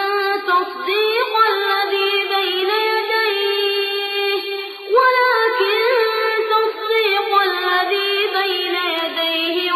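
A high-pitched voice chanting Quran recitation in long, melodically ornamented held notes, with a short break about halfway through.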